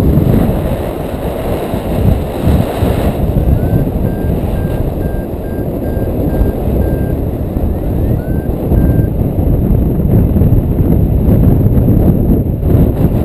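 Wind buffeting the microphone in flight, with a paragliding variometer's climb tone over it: about four seconds in it starts beeping at one pitch, about two beeps a second, each run opening with a short rising chirp, and it beeps again briefly a few seconds later.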